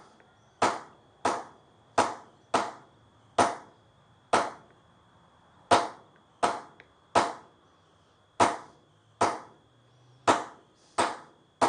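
A small hammer tapping a homemade metal punch, a bent threaded bolt, into a wooden board. About fifteen sharp taps come at an uneven pace of roughly one to two a second, stamping a thread-pattern texture into the wood.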